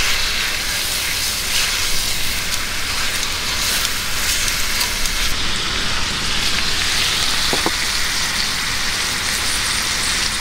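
Thin slices of meat sizzling in a hot cast-iron skillet: a steady crackling hiss.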